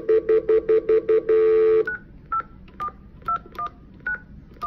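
Telephone stutter dial tone beeping rapidly, about five pulses a second, then a steady dial tone, the sign that a voicemail is waiting. About two seconds in it cuts off as a number is keyed in: a string of short touch-tone keypad beeps, about two a second.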